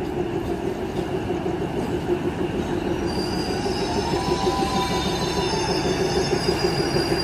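Diesel-electric multiple unit (DEMU) train pulling into the platform and running slowly past close by, its engine and running gear rumbling steadily. From about three seconds in, a high squeal from the wheels and brakes as it slows to stop.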